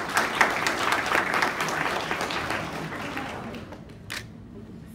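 Audience applause, starting at once and fading away over about three seconds.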